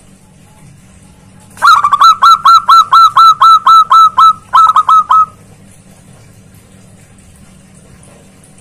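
Zebra dove (perkutut) giving a loud, rapid series of short calling notes, about four to five a second, for roughly three and a half seconds. The series starts about a second and a half in and has a brief break shortly before it ends.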